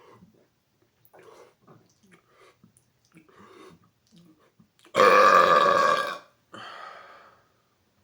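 A man's loud, drawn-out burp about five seconds in, lasting over a second, followed by a quieter, shorter burst; a fizzy burp. Faint small sounds come before it.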